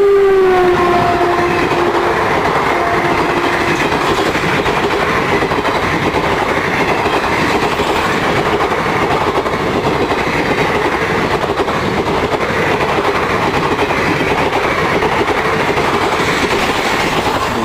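Express passenger train passing close by at speed: the locomotive horn is sounding as it goes past and drops in pitch in the first second, fading out a few seconds in. The coaches' wheels then keep up a loud, steady clatter over the rail joints, which starts to die away near the end.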